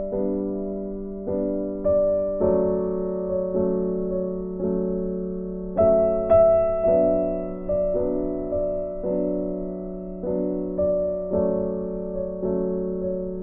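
Background piano music: a slow, gentle tune of struck notes and chords, a new note about once a second, each dying away.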